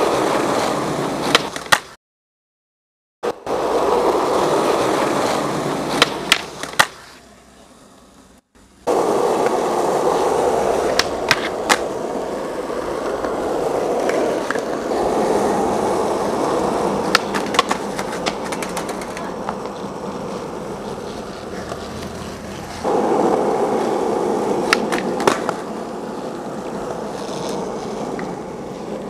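Skateboard wheels rolling on asphalt, a steady rumble broken by sharp clacks of the board hitting the ground as tricks are popped and landed. Several short takes follow each other, with about a second of dead silence two seconds in.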